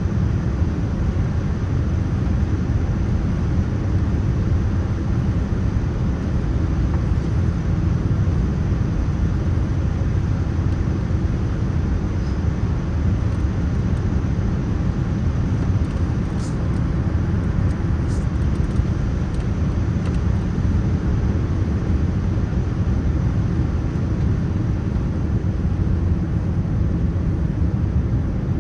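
Steady low rumble inside a Boeing 787-9 airliner's cabin: engine and airflow noise holding even, with a few faint ticks around the middle.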